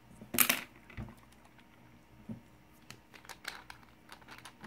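Small glass ink bottle and its cap being handled and opened: one sharp click and scrape about half a second in, then scattered light clicks and taps of glass and cap.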